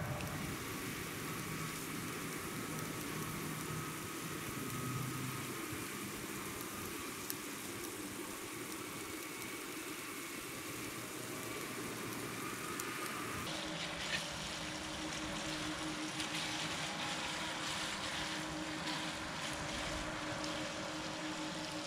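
Sliced duck meat sizzling on a griddle pan over a portable gas stove, a steady hiss that turns crisper, with small crackles, about two-thirds of the way through.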